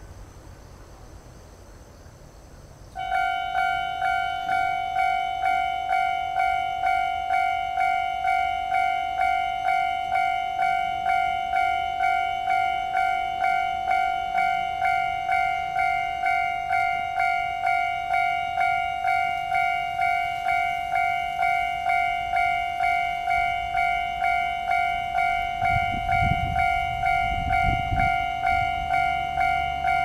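Railway level-crossing warning bell starting about three seconds in and ringing steadily, an even electronic ding repeating about one and a half times a second, signalling an approaching train. A low rumble joins near the end.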